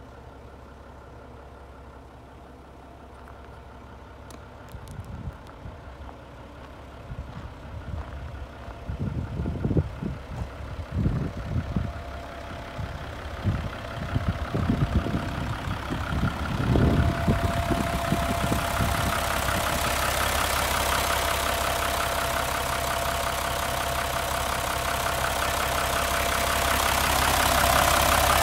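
Mitsubishi 6D15 inline-six turbo diesel idling steadily in a bus. It starts faint and grows louder and fuller toward the end, as the open rear engine bay is reached. Irregular low buffeting is heard through the middle.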